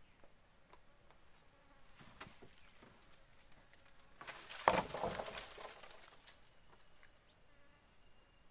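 A wooden pole being laid across a log platform frame: a few light knocks, then about four seconds in a loud clatter of wood knocking and leaves and branches rustling that lasts about two seconds. Insects buzz steadily in the background with a high tone.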